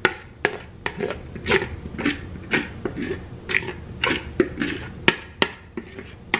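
A spatula knocking and scraping against a mixing bowl as thick macaroni and cheese is scooped and shaken out into a baking pan, with sharp knocks about two or three a second.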